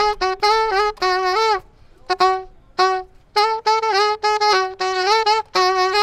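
Solo saxophone playing live: a phrase of quick notes with scooped, bent pitches, a short break with two brief stabbed notes about two to three seconds in, then a longer flowing phrase.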